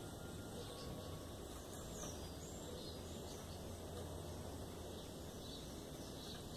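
Steady outdoor background noise with a few faint, short bird chirps scattered through it.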